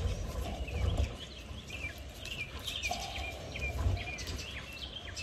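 Small birds chirping repeatedly in short, high calls, some sweeping down in pitch, over a low rumble.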